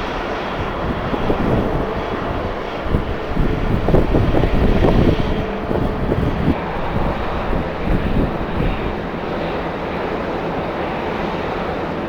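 Jet airliner engines running with a steady rush, and strong wind buffeting the microphone in irregular low gusts.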